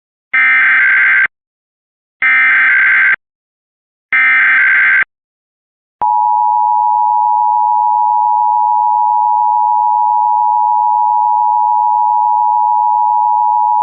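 Emergency Alert System SAME header: three short bursts of warbling digital data tones, about a second apart. After a pause comes the steady two-tone EAS attention signal, held for about eight seconds, which marks the start of the alert message.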